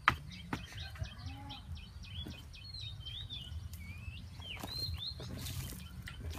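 A wooden digging stick strikes hard into dry earth twice near the start, the first strike the loudest sound here. Then loose soil is scraped and scooped out by hand, while small birds chirp.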